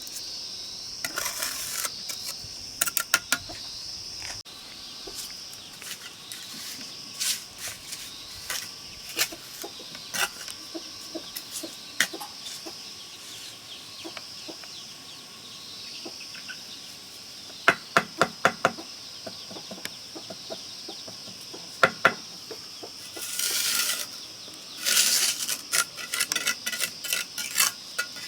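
Hard objects knocking and clinking at irregular intervals, with a quick run of knocks about two-thirds of the way in and a few short scraping rushes, over a steady high-pitched insect buzz.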